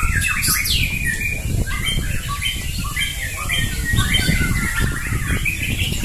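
White-rumped shamas (murai batu) singing in a contest, a dense run of overlapping whistles and trills with no pauses, over a low rumble.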